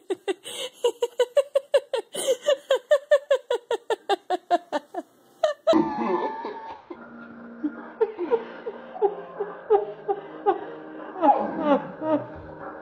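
A long fit of high-pitched rhythmic laughter, about four or five 'ha' pulses a second, for about five and a half seconds, then stopping abruptly as background music takes over.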